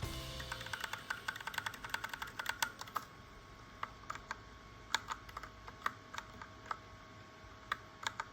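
Typing on a Royal Kludge RK61 60% mechanical keyboard: a quick run of key clicks for about three seconds, then slower, spaced single keystrokes.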